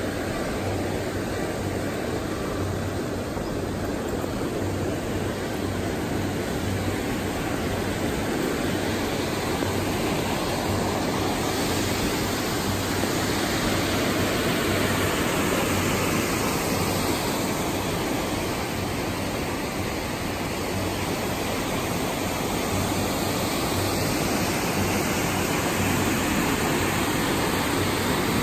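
Steady rushing of whitewater rapids pouring through a rocky channel, growing a little louder about twelve seconds in.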